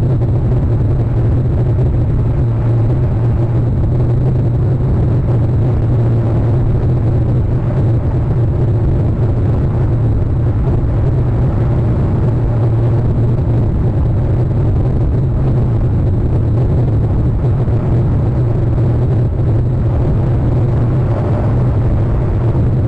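Steady low rumble with an even hiss over it, unchanging in level throughout: the outdoor ambience picked up by a wildlife camera's microphone.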